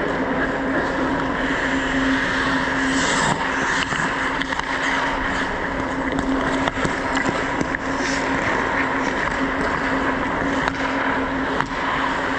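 Ice hockey play: skates scraping the ice and a few sharp stick or puck clicks over a steady hum.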